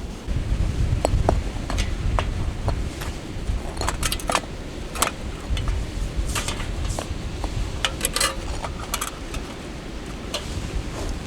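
Light metal camping gear being handled: a series of short clinks and taps, some ringing briefly, over a low steady rumble.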